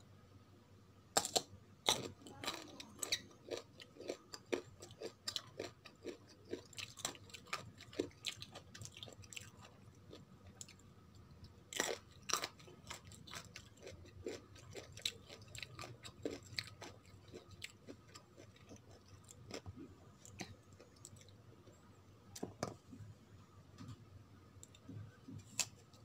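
Crunching and chewing of raw green mango slices: a steady run of crisp crackles and clicks, densest in the first few seconds, with louder bites about twelve seconds in and near the end.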